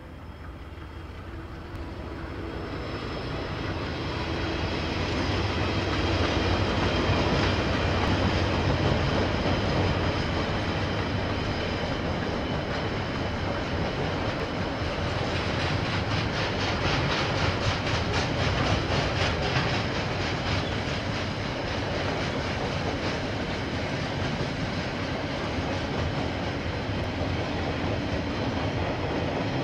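KiwiRail diesel freight train passing, growing louder over the first few seconds as it approaches, with the locomotives' engines droning. Then the wagons roll by with a steady rumble and a rhythmic clickety-clack of wheels on the rails.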